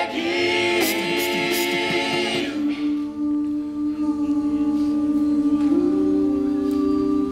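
All-male a cappella group singing long held chords in close harmony without instruments, the chord changing several times.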